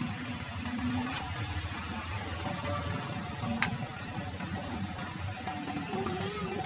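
A steady low rumble, with a metal ladle stirring thick coconut-milk pudding in a stainless steel pot and one sharp clink of the ladle against the pot about three and a half seconds in.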